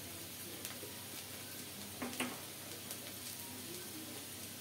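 Onion sizzling in hot mustard oil in a pan, a steady frying hiss, with a few light clicks; the loudest comes about two seconds in.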